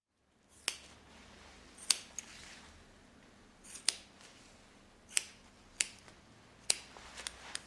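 Barber scissors snipping: about nine short, sharp metallic snips at uneven intervals, some in quick pairs.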